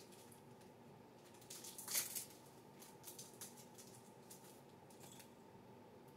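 Faint crinkling and rustling of a trading-card pack's wrapper being torn open and the cards handled, in a few short strokes, the loudest about two seconds in, over a low steady hum.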